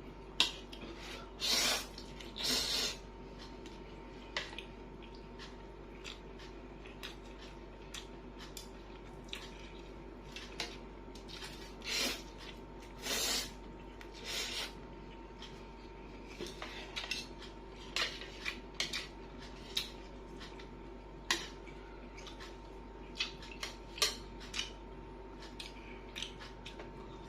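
Eating noises: cutlery clinking and scraping on a plate in scattered sharp taps, with a few louder noisy bursts about half a second long.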